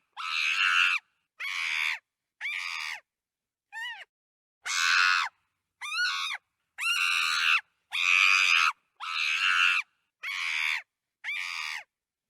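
A chimpanzee screaming in a rapid series of about eleven shrill screams, each under a second long, with a couple of shorter calls that bend in pitch, separated by abrupt silent gaps.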